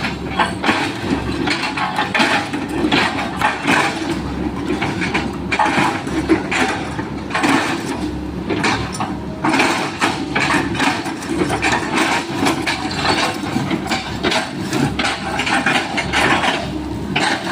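Sany excavator with its engine running, its bucket chopping and crushing oil palm trunks into chips: a dense, irregular run of cracks, knocks and crunches of splitting wood.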